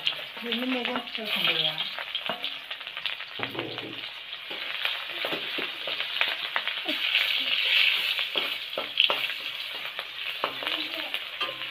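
Sliced onions and other slices frying in hot oil in a black wok, with a steady sizzle, stirred with a metal spatula that scrapes and taps against the pan.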